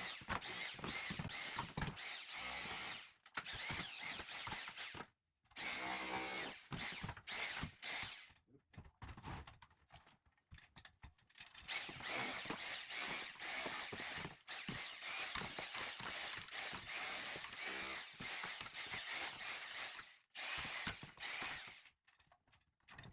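Chisel chipping old plaster and mortar off a stone wall, in long bursts of rapid rattling blows with short pauses about five and twenty seconds in.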